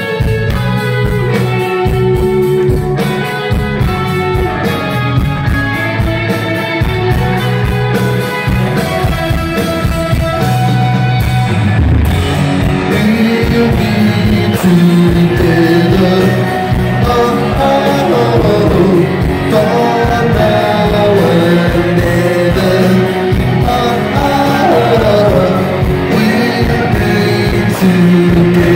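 Live rock band playing: electric guitars, bass and drums, with singing.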